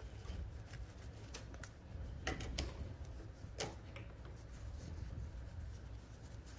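Faint scattered clicks and light rustling from hands shifting the paper stabilizer and fabric around the stuck needle of a chainstitch embroidery machine, over a low steady hum.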